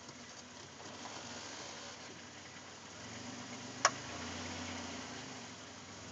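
2005 Chrysler Town and Country van idling, with a single sharp pop about four seconds in: the loud popping noise the van makes when shifted between Park, Neutral and Drive, whose cause the owner has not found.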